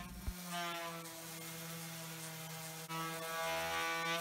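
Random orbit sander with a 60-grit disc running against wooden rails: a steady motor hum, a little louder near the end.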